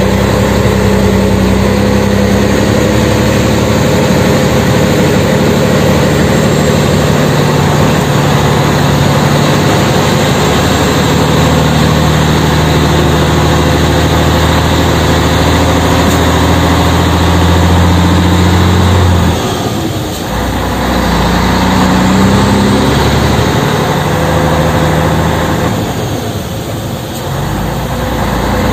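Scania 113M 320's 11-litre straight-six diesel running hard under a heavy crawler-crane load, heard from inside the cab. The engine note holds steady, then falls away briefly twice: once about two-thirds of the way in and once near the end.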